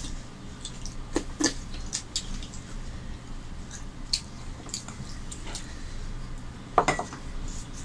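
Hand-eating sounds: fingers working rice and dal on melamine plates, with lip smacks and chewing, heard as scattered small clicks and ticks. A louder clink near the end, with a brief ring.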